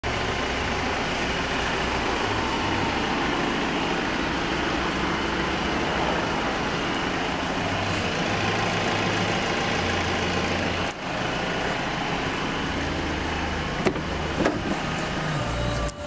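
Steady motor-vehicle noise, with a brief drop about eleven seconds in and a couple of sharp clicks near the end.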